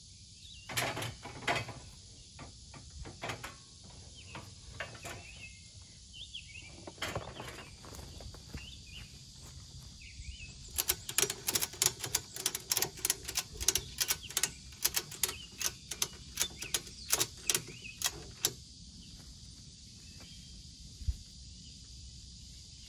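An orange ratchet strap is cranked tight over a ladder stand on an ATV rack: a run of sharp ratchet clicks in repeated strokes lasting about eight seconds. A few metal clanks come about a second in, as the stand's steel seat section is set down on the rack.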